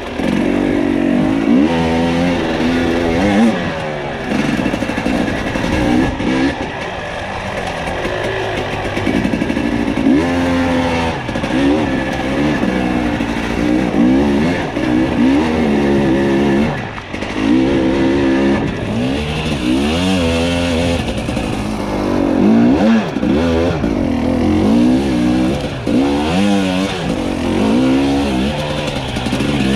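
Dirt bike engine being ridden hard, revving up and dropping back again and again as the throttle is worked, its pitch rising and falling every second or two.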